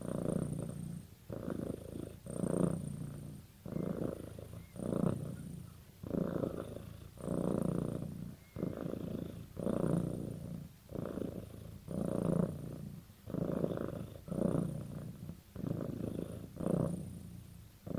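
Domestic cat purring while its cheek is stroked. The low purr swells and fades with each breath, about once a second.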